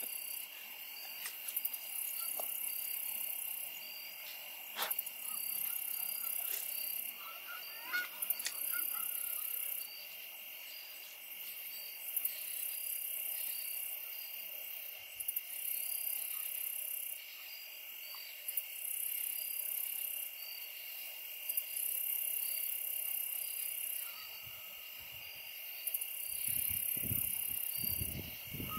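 Evening insect chorus: a steady high trill with short chirps about twice a second, over a higher buzz that swells and stops every second or two. A few soft low thumps near the end.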